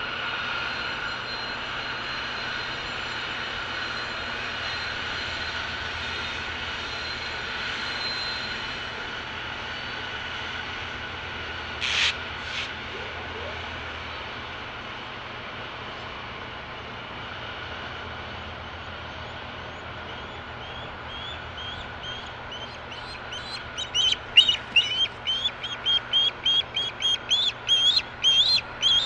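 Freight train passing, a steady rumble with a faint whine under it. Two brief high calls come near the middle, and about 22 seconds in an osprey starts a rapid run of high chirping calls, about three a second, growing louder.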